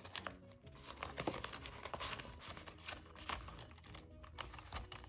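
Soft background music, over the crinkle and rustle of paper banknotes and a clear plastic zipper pocket being handled as the bills are slid inside, in many short crackles.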